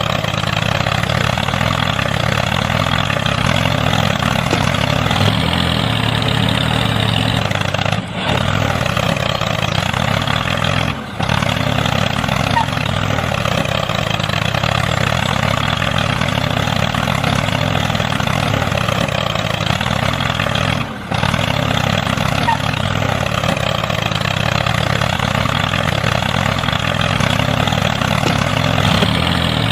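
Engine running steadily with a wavering pitch, as on a working mini tractor, dipping briefly three times.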